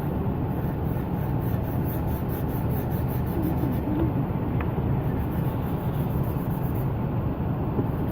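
Steady low rumbling noise, with faint, quick, repeated scratches of a marker tip colouring in over it.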